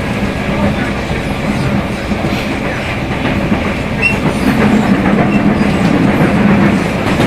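Rio de Janeiro Metro Line 2 train running, heard from inside the car: wheel-on-rail noise with a low, steady traction-motor hum, the motor 'roncando' (growling). The hum and overall level grow louder about halfway through.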